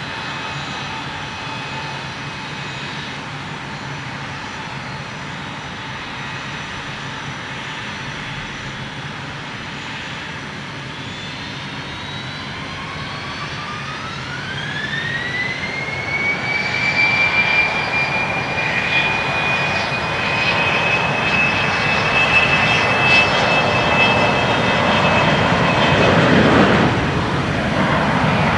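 Gulfstream IV business jet's two Rolls-Royce Tay turbofans running steadily, then spooling up to takeoff power about halfway through: a whine rising in pitch and settling into a steady high whine. A growing jet roar comes in near the end as the jet rolls down the runway.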